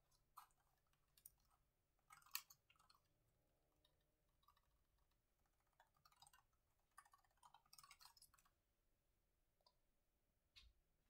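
Faint typing on a laptop keyboard: bursts of key clicks that stop about eight seconds in, then a single soft knock near the end.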